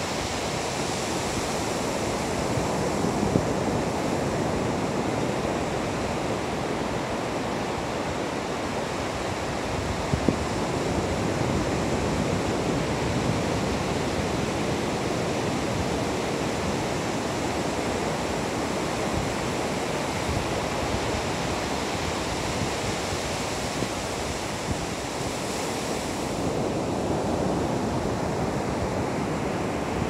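Ocean surf: waves breaking along a sandy beach, a steady rushing wash of water.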